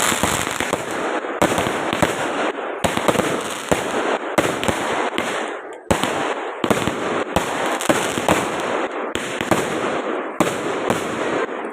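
Fireworks going off: many sharp bangs over a continuous crackle, with a brief lull about six seconds in.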